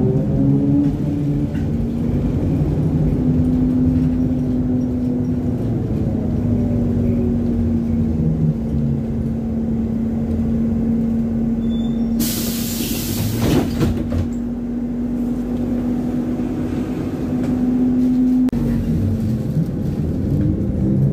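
Interior sound of a ZiU-682G trolleybus under way: the traction motor and drive whine at one steady pitch for most of the time, with rumble from the running gear, and the pitch glides at the start and again near the end as the speed changes. About twelve seconds in there is a hiss lasting a second and a half.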